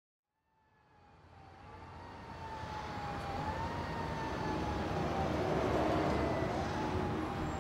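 Town traffic ambience fading up from silence about half a second in: a steady rumble of traffic growing louder, with a single wavering high tone drawn out over it.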